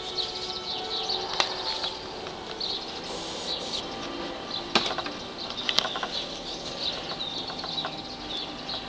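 Small birds chirping and twittering continually, with a few sharp clicks through it.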